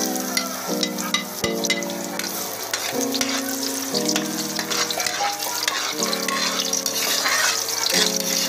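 Red onion and garlic sizzling in hot cooking oil in a wok, stirred and scraped with a spatula, with repeated scraping clicks. Background music plays under it, its notes changing about once a second.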